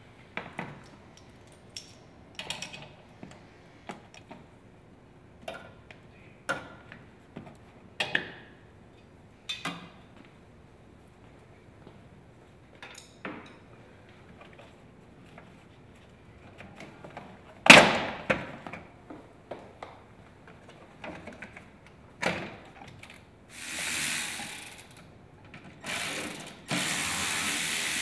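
Hand work on a car's plastic windshield cowl panel: scattered clicks and snaps of plastic and trim clips, with one loud knock about two-thirds of the way through. Near the end a ratchet wrench is run in several bursts, the longest running into the last seconds.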